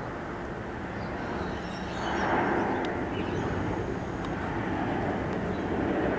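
Boeing 737-800 jet on final approach passing low overhead: a steady rumble from its CFM56 turbofan engines that swells about two seconds in and stays loud.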